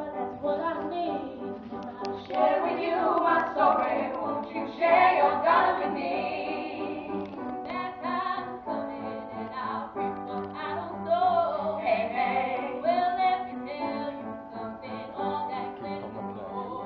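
Teenage girls singing a song with instrumental accompaniment.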